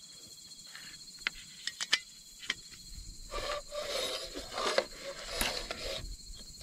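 Small metal clicks and scrapes as a portable gas camping stove is screwed onto its gas canister and set down on a wooden table, with a denser stretch of handling noise in the second half. Crickets chirp steadily in the background.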